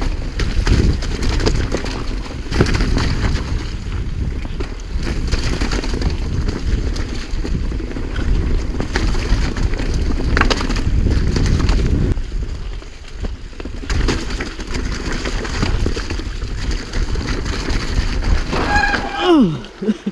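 Giant Trance mountain bike descending a rough dirt and stone trail: tyres rolling and crunching over loose ground, with rattles and knocks from the bike and a steady rush of wind on the camera's microphone. Near the end there is a short falling cry from the rider.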